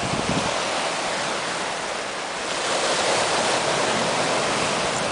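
Loud, even rushing noise that swells about two and a half seconds in and eases slightly near the end.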